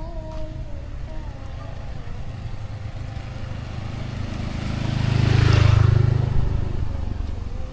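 A motor vehicle passing close by on a wet road: its engine grows louder about four seconds in, peaks with a tyre hiss around five to six seconds, then fades away.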